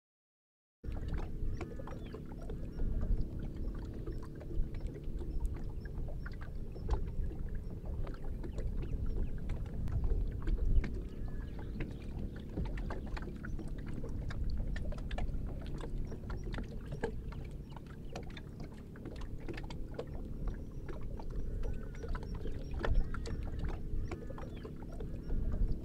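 Water lapping against a boat and a bamboo platform, with a steady low rumble and many scattered sharp clicks.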